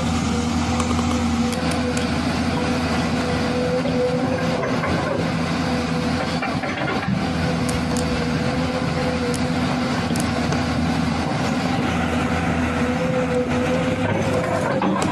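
A motor running steadily with an even, unchanging hum, with a few faint ticks over it.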